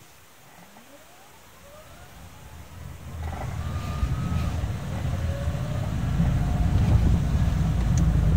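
Honda Vezel pulling away from a stop with a creaking, squeaking ggg-ggg sound from the car, a few wavering squeals rising and falling in pitch. Low driving rumble grows louder as it gathers speed. The noise comes on every start-off and on accelerating from low speed, which the owner takes to mean it is not the brakes.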